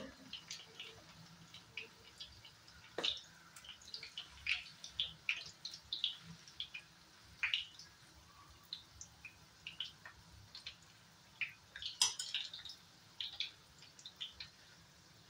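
Chana dal fritters shallow-frying in hot oil in a nonstick pan: irregular crackles and pops of sputtering oil, with sharper pops about three, seven and twelve seconds in.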